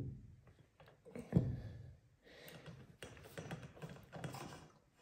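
Light clicks and taps of a piston wrist-pin clip installation tool and its parts being handled and set, with one sharper knock about a second and a half in.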